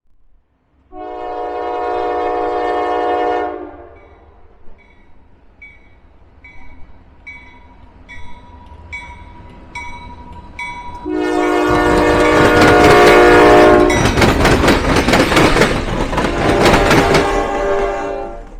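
Diesel locomotive horn sounding a long blast, then a bell dinging steadily about one and a half times a second. The horn then sounds again as the train passes close, its engine and wheels on the rails making a heavy rumble with clicks.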